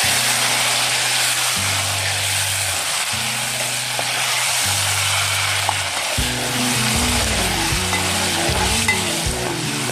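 Onion frying in hot oil, a steady sizzle as it browns, with background music underneath.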